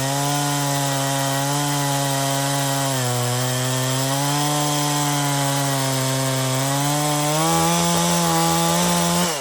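Chainsaw cutting through a log, the engine running steadily under load with its pitch wavering as the chain bites into the wood. The pitch rises a little near the end, and the throttle is let off right at the close.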